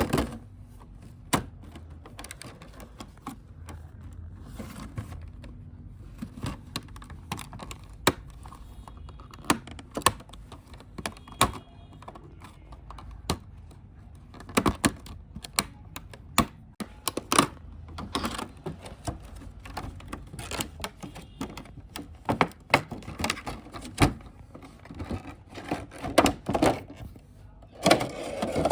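Small plastic toy pieces being unpacked and handled: irregular clicks, taps and knocks, coming thicker and faster in the second half.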